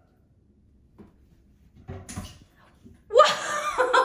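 A few faint, short knocks, then a person bursts out laughing about three seconds in.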